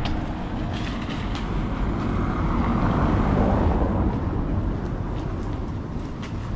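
A vehicle passing by, its noise swelling to a peak about three seconds in and then fading, over a steady low rumble of wind on the microphone.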